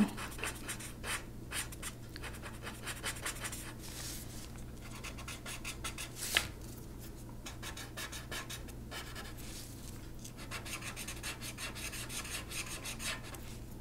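Felt tip of an alcohol-based blender marker rubbing over colored pencil on paper in small, quick circles: a continuous fine scratching, with one sharper tick about six seconds in.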